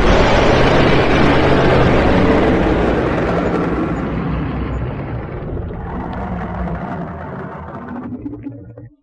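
Dragon sound effect: a long, rough, roar-like rush of sound that starts loud and slowly fades, swells again briefly near the end, then cuts off.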